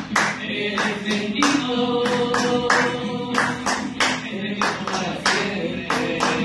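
A song with singing, and people clapping along to its rhythm, several sharp claps a second.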